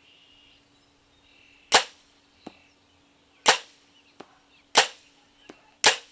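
Bow shot four times: each release is a loud, sharp snap, followed about 0.7 s later by a fainter thwack as the arrow strikes the target at 50 yards. Faint bird chirps come near the start.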